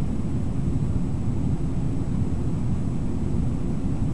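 Steady low rush of a fast river running over rapids, with no separate events.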